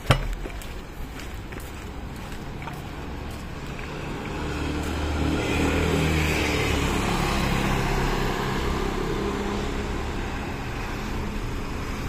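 A sharp knock at the very start, then a car driving past: engine and tyre noise swell from about four seconds in, are loudest around six seconds and fade slowly away.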